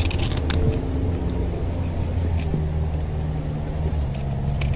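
A steady low motor hum underneath, with a few sharp clicks and scrapes near the start and again near the end as a fillet knife works along a large horse-eye jack's backbone and hard scales.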